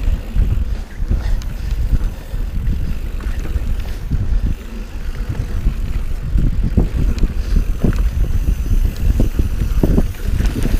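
Mountain bike rolling fast down a dirt singletrack, heard from a camera on the rider: wind buffeting the microphone and tyre noise as a steady rumble, with short knocks and rattles from the bike over bumps.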